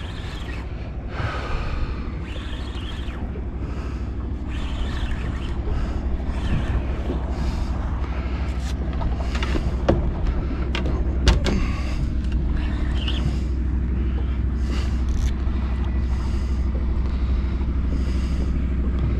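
Steady low wind rumble on the microphone over open water, swelling and easing, with a couple of sharp clicks about ten and eleven seconds in.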